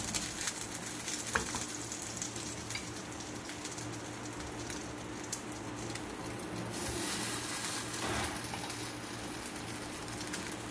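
Stuffed bread patties shallow-frying in a thin film of oil in a nonstick pan on low heat: a gentle sizzle with scattered small crackles. The sizzle swells for a moment about seven seconds in, as another patty goes into the pan.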